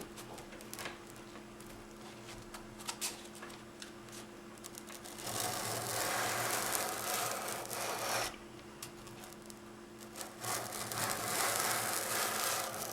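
Knife blade scraped repeatedly across a coarse sharpening abrasive while the second side of the edge is honed. A few light ticks come first, then two long stretches of steady scraping, the first about five seconds in and the second near the end.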